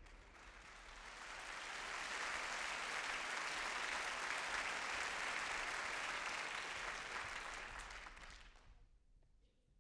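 Audience applause that swells over the first couple of seconds, holds steady, then dies away about nine seconds in.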